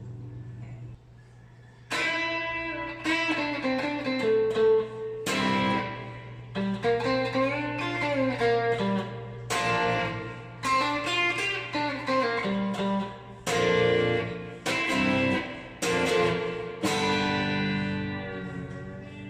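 Electric guitar played through a VOX VT40X modelling amp: a melodic phrase of single notes and chord stabs in short bursts with brief gaps, starting about two seconds in and letting the last chord ring. A steady low amp hum sits underneath.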